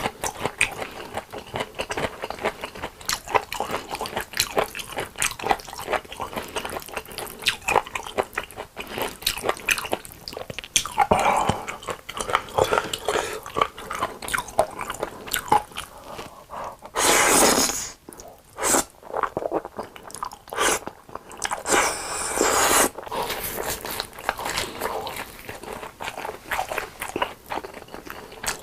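Close-miked eating: steady biting and chewing with crunching. Twice, about halfway through and again a few seconds later, there is a louder noisy sound lasting about a second.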